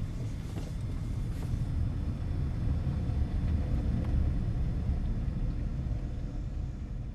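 Steady low rumble of a 2004 Honda CR-V driving slowly through tight turns, heard from inside the cabin. No rear differential shudder or groan is heard: it has been cured by fresh Honda Dual Pump fluid.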